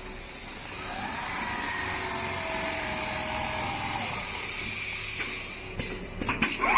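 Automatic large-panel sewing machine running with a steady high hiss and a faint whine that glides down in pitch. The hiss stops about five and a half seconds in, and a quick run of clicks and knocks follows near the end.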